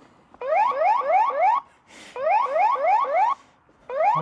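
Segway Navimow robotic lawn mower's anti-theft alarm going off because the mower has been lifted and carried away. It sounds in short bursts of four quick rising electronic whoops, with brief pauses between bursts.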